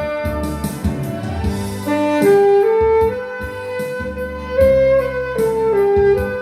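Alto saxophone playing a slow melody of long held notes that move in small steps, over a backing track with bass and a steady drum beat.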